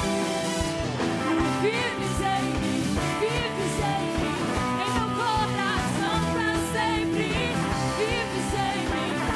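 Band music from a Christian worship set: held chords over a steady drum beat, with a voice singing a melody over it from about a second and a half in.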